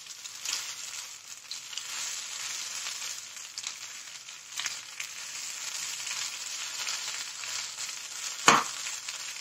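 Raw banana slices frying in oil in a nonstick pan, sizzling steadily while a steel spoon stirs them, with small scattered clicks. One sharp knock near the end.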